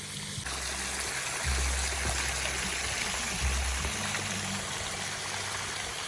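Water from a newly built pondless waterfall spilling over rocks in a steady, even splash. It comes up fuller about half a second in, with a low rumble at times underneath.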